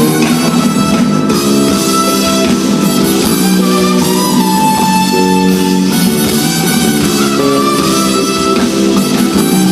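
Live band music: an instrumental passage with held melody notes over sustained chords, with no singing.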